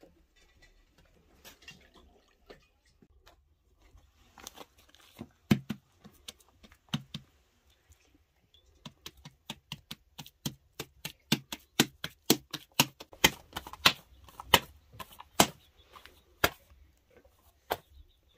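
Hands slapping and patting a round of flatbread dough between the palms to stretch it out. A few separate slaps at first, then a quick, even run of about two or three slaps a second.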